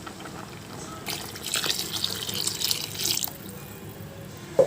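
A glass of water poured into a pot of simmering chicken curry, splashing for about two seconds. A short knock follows near the end.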